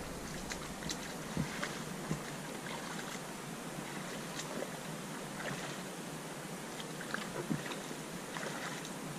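Steady rush of shallow river riffles running over rocks, with a few faint short clicks.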